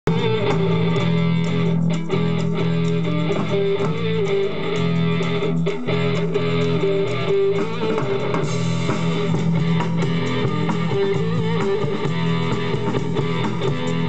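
A band playing live on amplified electric guitar with a drum kit: an instrumental passage with sustained low notes and occasional sharp drum hits.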